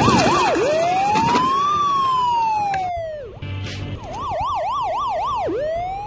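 Toy police car's electronic siren. It opens with a fast yelp, warbling about four times a second, then a slow wail rising and falling over about three seconds. After a short break the fast yelp returns, and a new rise begins near the end.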